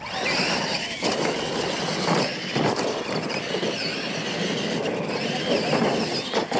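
Two radio-controlled monster trucks launching at full throttle and racing over a dirt track: a high whine from their electric motors and gears over the rush of big tyres churning dirt, starting suddenly with the launch.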